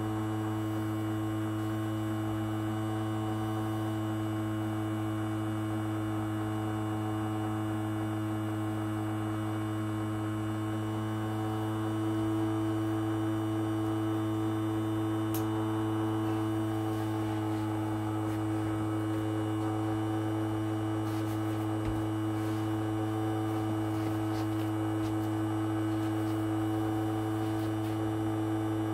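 Household ultrasonic cleaner running with coins in its water tank: a steady electrical hum with several overtones.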